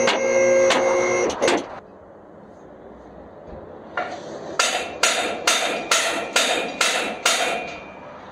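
Background music with a steady beat of about two strokes a second; it drops out for about two seconds after the start, and the beat returns about four and a half seconds in.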